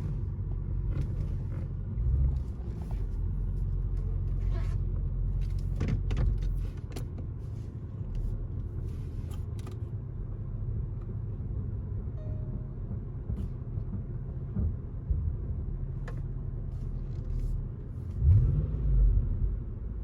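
Range Rover Sport's supercharged V8 and road noise heard from inside the cabin while driving: a steady low rumble, with a few faint clicks. The engine note swells briefly near the end.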